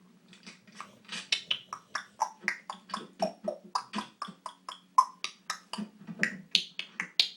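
African grey parrot making a rhythmic string of clicks and short chirped notes, about four a second and changing pitch from note to note, like beatboxing its own tune. A steady low hum lies underneath.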